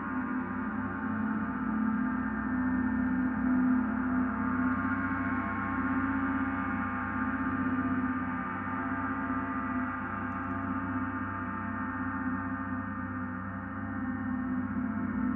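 Large gong played continuously with mallets, a steady wash of many overlapping ringing tones with no distinct separate strikes. The sound swells gently and eases a little near the end.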